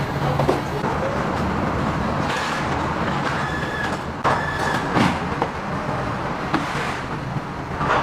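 Steady machine hum with sharp clanks and knocks every second or two, the kind of noise heard on a factory floor.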